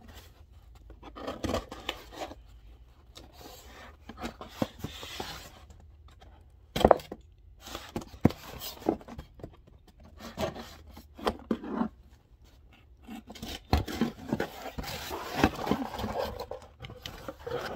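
A cardboard shipping box being handled and opened by hand: irregular scraping, rubbing and rustling of cardboard, with scattered clicks and one sharp knock about seven seconds in.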